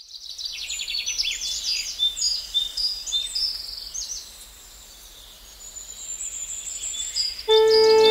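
Several birds chirping and trilling in quick high calls over a faint background hiss, thinning out in the middle and picking up again. Music with sustained instrument notes comes in suddenly near the end.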